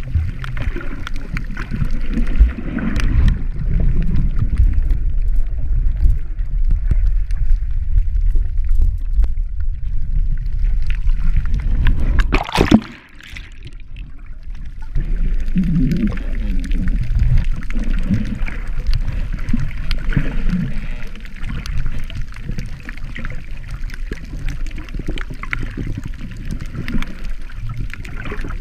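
Muffled underwater sound picked up through a waterproof action-camera housing: a low rumble and sloshing of water moving around the camera. About halfway through there is a short loud crackle, then a brief quieter spell.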